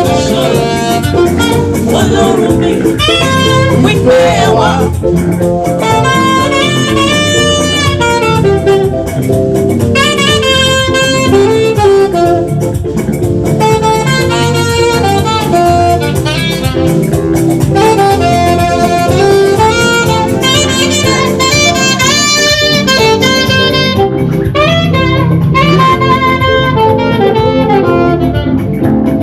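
Saxophone playing a flowing melody over a steady band accompaniment, in a gospel-jazz style.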